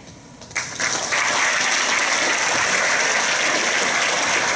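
Crowd applauding: the clapping breaks out about half a second in, swells to full within a second, and holds steady.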